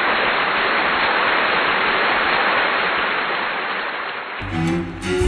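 A steady, loud hiss of noise, like rain or static, that stops about four seconds in as a jazz ensemble with saxophone comes in.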